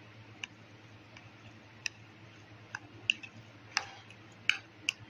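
A spoon clicking against a bowl as chicken filling is mixed with mayonnaise: about seven short, sharp clicks at irregular intervals, the loudest near the end.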